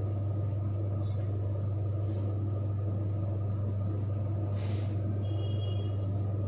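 Steady low electrical hum with machine noise under it, with a short burst of hiss about two-thirds of the way through.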